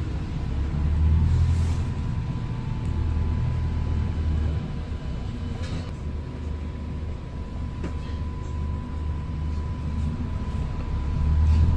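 Bus interior on the move: steady low engine and road rumble, swelling about a second in and again near the end, with a faint steady high tone running under it.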